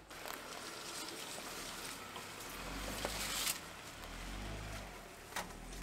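Jeep Wrangler driving slowly past on a leaf-covered dirt trail: the engine's low hum comes in about two and a half seconds in as it draws close, over the rustle of tyres on leaves and twigs. A brief loud rustle comes about three and a half seconds in, and a sharp click near the end.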